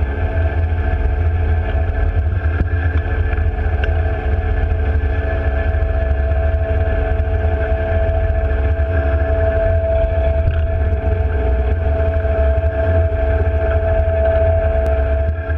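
Twin diesel engines of a Mersey-class lifeboat running steadily, heard from the deck: a constant low rumble with a steady mid-pitched tone over it.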